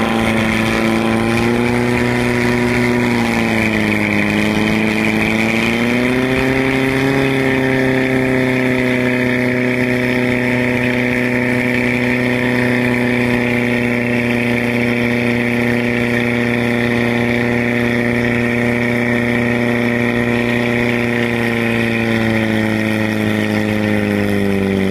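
Portable fire pump's engine running hard under load, driving water through the hose lines to the nozzles. Its pitch rises at the start, dips briefly a few seconds in, climbs again and then holds steady, sagging slightly near the end.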